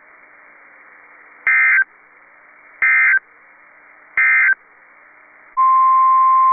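NOAA Weather Radio Emergency Alert System audio. Three short squawks of SAME digital data come over faint radio hiss; their shortness fits the end-of-message code that closes the watch broadcast. About five seconds in, the steady 1050 Hz weather-radio alert tone begins.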